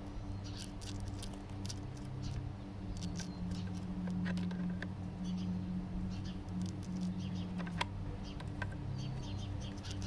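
Irregular small clicks and scrapes of a 21700 lithium-ion cell's dremel-cut metal can being worked and pulled apart by hand, over a steady low hum.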